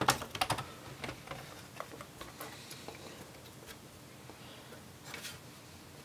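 Plastic snap clips of a laptop's base cover clicking free as a plastic pry tool works along the edge: a quick run of small clicks in the first second, then scattered faint clicks and a brief scuff about five seconds in.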